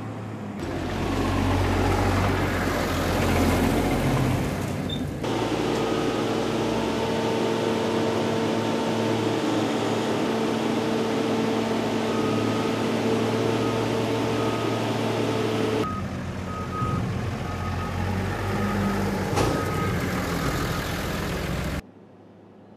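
Farm tractor diesel engines running under load, hauling and tipping high-sided silage trailers, with a steady machine whine through the middle. Later a short beep repeats at even spacing, as from a reversing alarm at the silage pit. The sound drops sharply near the end.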